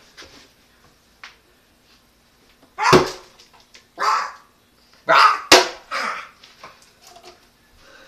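A dog barking about five times, starting about three seconds in, the barks coming roughly half a second to a second apart.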